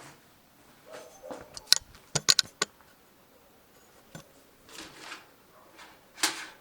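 A scatter of sharp metallic clicks and clinks, a few close together in the first half, then two short rustling sounds near the end, like small parts or tools being handled.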